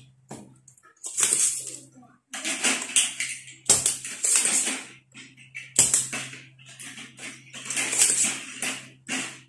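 Hand-held desoldering pump being cocked and fired over a circuit board: a series of sharp snaps and clicks, the two loudest about four and six seconds in, with short scraping noises between, over a low steady hum.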